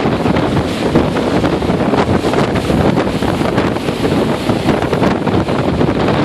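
Strong gale-force wind buffeting the microphone in a loud, steady rush, with breaking lake waves mixed in.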